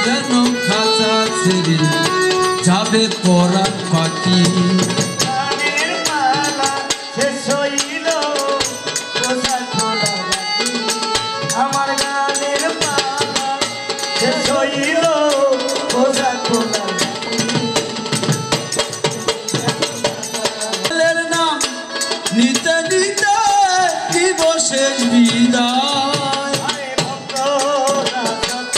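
Instrumental interlude of Bengali folk song: a melodic instrument playing gliding, ornamented lines over fast, busy percussion.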